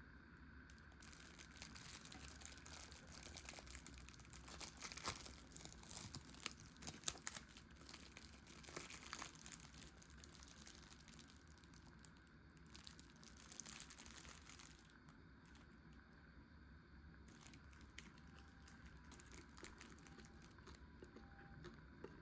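Thin plastic film wrapper of a convenience-store rice ball being torn open and pulled off, with dense crinkling and tearing for about a dozen seconds. It then goes on as fainter, scattered crinkles.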